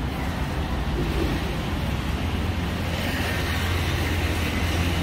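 Street traffic noise: vehicles running with a steady low rumble that grows a little stronger about three seconds in.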